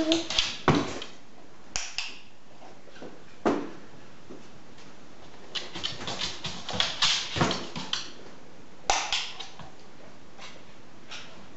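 A dog's claws clicking and tapping on a hard floor as it walks and turns, in irregular clusters of quick clicks.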